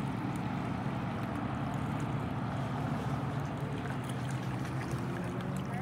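A steady low engine hum over an even outdoor hiss.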